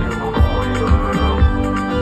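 A live band playing a song through a large PA system, heard from within the audience: a steady deep drum beat about twice a second under sustained chords.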